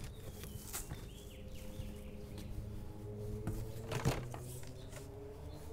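Cardboard box flaps and a cardboard insert being opened and handled: scattered rustles and scrapes, with the sharpest cardboard knock about four seconds in.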